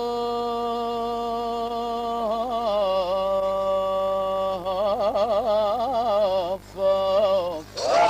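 A man singing one long drawn-out note into a microphone, held steady at first, then wavering with vibrato and quick melismatic turns from about two seconds in, with a short break near the end: the drawn-out sung opening of a Lebanese zajal verse.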